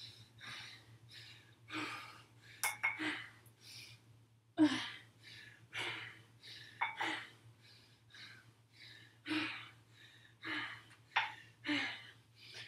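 A woman's heavy breathing and gasping from exertion, a hard breath roughly every second as she squats and raises a leg and her arms, with one sharper knock about four and a half seconds in. A low steady hum lies underneath.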